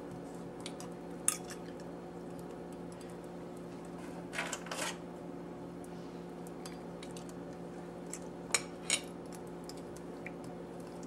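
A few light clinks of eggs knocking against stainless steel saucepans as they are set into the blueberry dye, over a steady low hum. The clinks come about a second in, a cluster around four to five seconds, and two more near eight to nine seconds.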